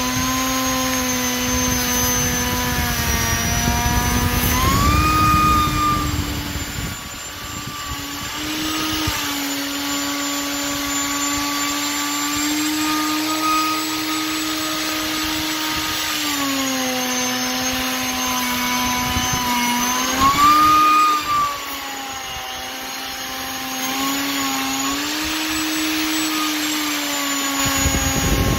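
Triton 3¼ HP plunge router with a 2.5-inch carbide insert flattening bit, riding a router sled and surfacing a cedar slab. It makes a steady motor whine over a hiss of cutting, and the pitch dips and rises again a few times.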